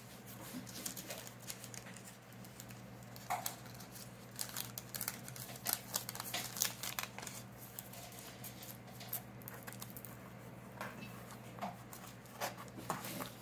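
Thin Bible-paper pages rustling and crinkling as hands slide, pat and smooth them flat on a paper-covered board, in short scattered bursts with a busier stretch a few seconds in and again near the end.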